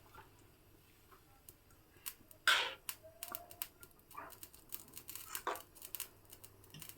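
Cooking utensil clicking and knocking against a pot, starting about two seconds in, with one louder knock soon after and lighter, irregular clicks following.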